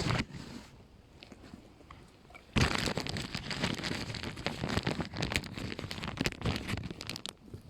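Dense crunching and crackling rustle, full of small clicks, starting about two and a half seconds in and stopping near the end.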